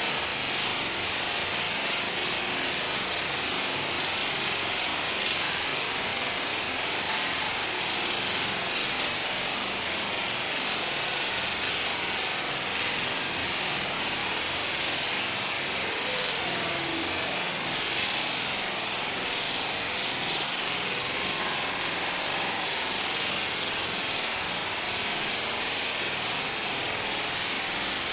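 Heavy rain falling steadily at night, a continuous even hiss without letup.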